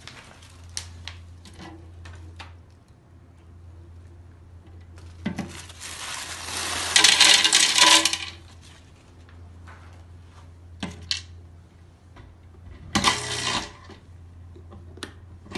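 Small stones poured from a folded paper sheet clatter into an empty clear plastic blender jar, a dense rattle loudest about six to eight seconds in. Scattered clicks and knocks come before it, and a shorter clatter about thirteen seconds in.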